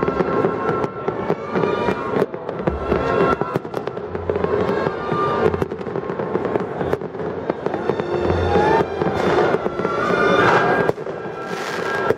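Fireworks going off in a rapid, irregular string of bangs and crackles.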